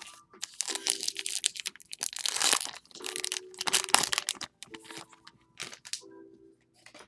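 Foil wrapper of a 2021 Topps Allen & Ginter retail card pack crinkling and tearing as it is opened and the cards are slid out: a run of crisp rustles, loudest about midway, dying away near the end.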